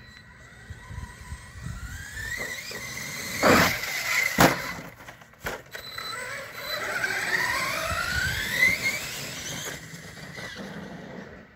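Electric RC monster truck's motor whining, rising in pitch each time it accelerates. A few hard knocks about three and a half to five and a half seconds in are the loudest sounds.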